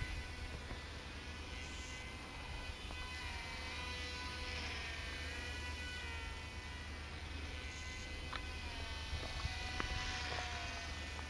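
Twin small electric motors and propellers of a Silverlit X-Twin Turbo-Fury toy RC plane buzzing in flight, the pitch slowly drifting up and down as it flies and turns, with a few faint clicks in the second half.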